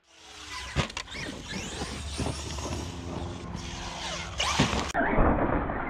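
Traxxas XRT electric RC monster truck tumbling after a jump: a hard crash impact about a second in, then bangs and scrapes, with the brushless motor whining steadily as the wheels spin. Another loud impact comes near the end.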